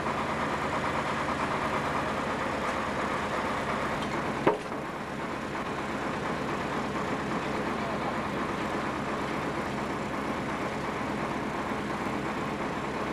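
Crane truck's engine running steadily, with a single sharp click about four and a half seconds in.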